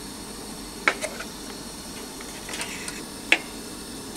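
Cooking sounds: a steady hiss with a few light clinks of utensils against pots and dishes, the clearest about a second in and near the end, as fish cake soup is being made.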